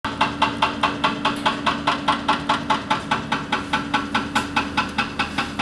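Hydraulic breaker on a Volvo wheeled excavator hammering at an even rate of about four to five blows a second, over the excavator's steady engine hum.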